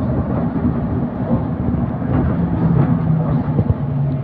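Trolleybus in motion, heard from inside the cabin: steady rumble of the ride with a low hum that shifts slightly in pitch partway through, and a few knocks about three and a half seconds in.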